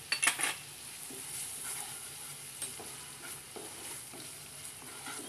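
Wooden spatula stirring onion paste in a non-stick frying pan while it sizzles in hot oil. A few sharp clicks just after the start are the loudest sounds, followed by a steady hiss and soft scrapes.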